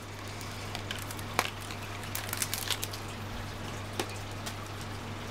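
A small cardboard Chocoball candy box being handled and opened: scattered light clicks and crinkles, a sharper click about a second and a half in and another near four seconds, over a steady low hum.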